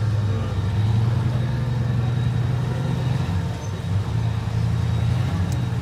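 Rock crawler buggy's engine running under load as it climbs a rock ledge: a steady low drone that dips briefly about three and a half seconds in.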